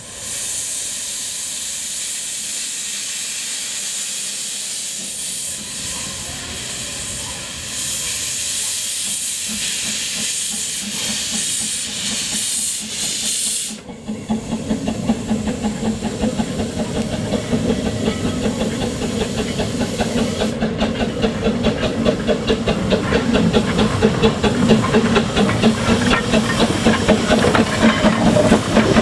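Bagnall 0-4-0 narrow-gauge steam locomotive: for the first half a loud, steady hiss of escaping steam. About halfway it changes abruptly to fast, rhythmic exhaust chuffs of the locomotive working along the track, growing louder.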